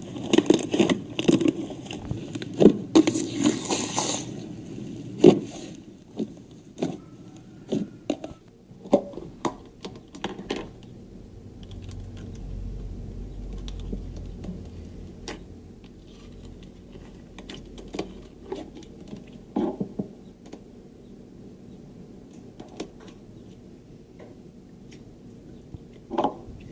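Hands squeezing and poking slime: sticky clicks, pops and crackles, thick and fast for the first few seconds, then sparser. A low rumble runs for a few seconds around the middle.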